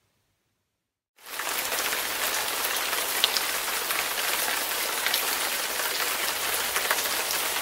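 Steady rain, a dense even hiss with scattered drop ticks, cutting in suddenly about a second in after silence.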